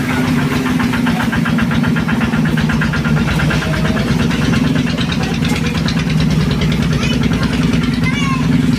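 A small engine running steadily at an even idle, with a rapid, regular knocking beat.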